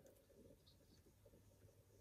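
Near silence: room tone with a faint low hum.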